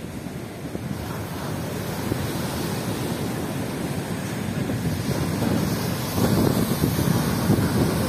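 Sea waves breaking and churning against a concrete seawall, with wind buffeting the microphone. The surf grows louder about six seconds in as a bigger wave crashes and splashes up.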